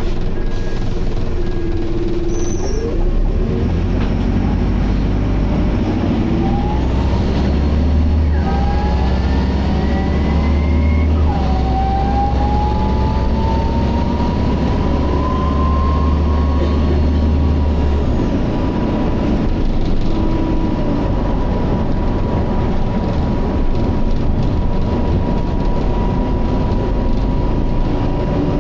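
Optare Solo bus pulling away: the Allison automatic gearbox whines, its pitch rising through the gears over a heavy low engine rumble. After about eighteen seconds the rumble eases and a steady high-pitched whine holds on.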